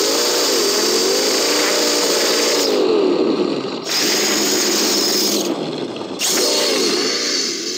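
Brushless electric motor and drivetrain of an Axial SMT10 RC monster truck whining as the tires spin and churn through snow, the pitch wavering up and down with the throttle, over the hiss of thrown snow. The hiss cuts out briefly twice, about three seconds in and again near six seconds.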